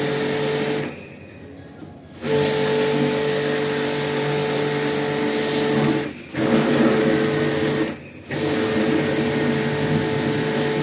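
A small electric motor running with a steady hum and hiss, switched off and back on three times: off for over a second about a second in, then briefly near six and eight seconds in.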